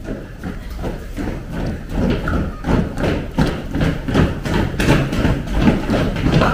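Many children's feet running and stomping on a tiled floor in an even rhythm of about three steps a second, louder from about two seconds in.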